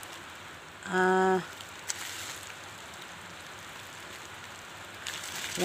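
Bubble wrap around a bottle crinkling and rustling as it is handled. About a second in, a person's voice makes a short steady-pitched sound.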